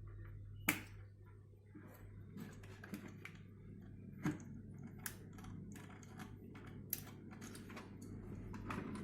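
Irregular light clicks and taps of hands and tools working on a speaker's cabinet and parts during repair, with a few sharper knocks, over a steady low hum.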